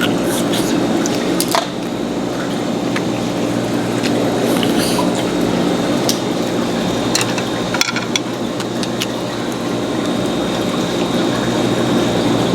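Close-up eating sounds of clams in sauce: wet chewing and slurping, with a few sharp clicks of shells or utensils. A steady background hum runs underneath.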